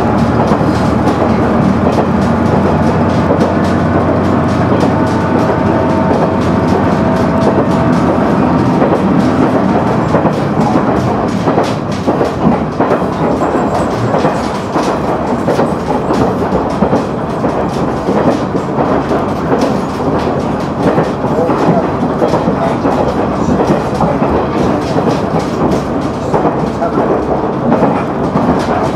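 A KiHa 100 diesel railcar running, heard from inside the cabin. For roughly the first third the diesel engine hums steadily over the wheel noise. After that the engine tones fade and wheel-and-track clatter takes over.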